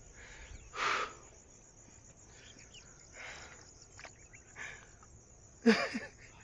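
A hiker breathing hard, out of breath on a steep uphill climb: a few heavy exhales a second or two apart. Near the end comes a brief grunt.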